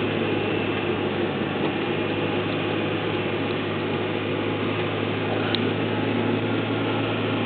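Steady engine and road noise inside the cabin of a moving 2004 Honda Civic Si hatchback. Its 2.0-litre four-cylinder runs at a constant drone.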